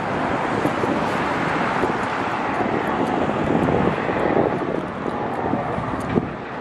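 Ferrari SF-23 Formula 1 car's 1.6-litre V6 turbo-hybrid engine heard at a distance, running steadily around the circuit as a drone-like noise, with wind on the microphone.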